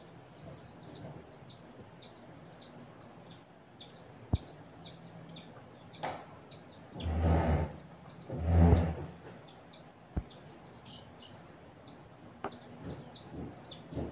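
Kittens wrestling on a bedspread, with two loud scuffling bursts about halfway through and a few sharp knocks. Short high-pitched chirps repeat two or three times a second throughout.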